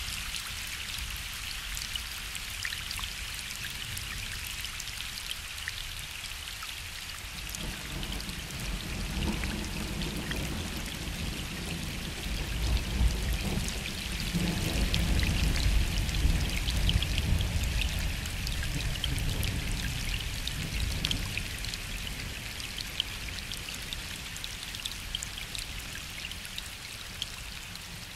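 Gentle rain falling on a lake, with a steady hiss and many fine drop ticks. About a quarter of the way in, a long low rumble of distant thunder swells, is loudest in the middle, and rolls away before the end.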